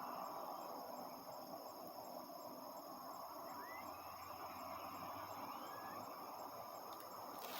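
Evening insects trilling steadily in several high-pitched bands, one of them pulsing in a regular rhythm, over a low steady hum of distant farm machinery. A few faint short rising bird chirps are heard midway, and a brief click near the end.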